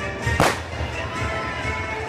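A single firework bursting with a sharp bang about half a second in, over a steady low rumble.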